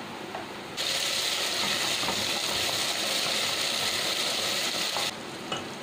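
Vinegar-ground vindaloo spice paste sizzling as it hits hot oil and fried onions in the pan: a steady loud hiss that starts about a second in and cuts off sharply near the end.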